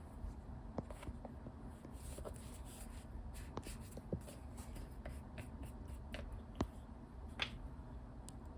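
Makeup tools and cosmetics handled close to the microphone: soft scratchy rubbing with scattered light clicks and taps, the sharpest about two-thirds of the way through.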